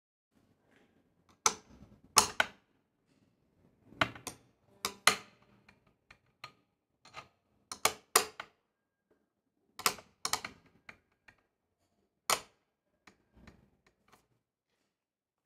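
Wera Joker combination ratchet spanner worked back and forth on a nut, giving sharp metallic clicks and knocks, often in pairs, every second or two.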